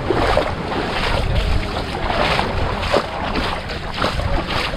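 Wind buffeting the microphone over small waves lapping and washing onto the sand, in irregular swells.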